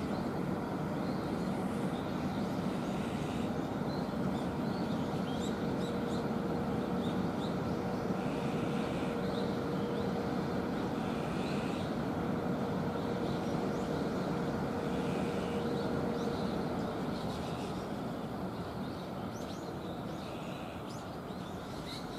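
Steady low rumble and hum of a rail yard with parked electric locomotives, carrying a single steady humming tone that drops out about two-thirds of the way through. Small birds chirp now and then.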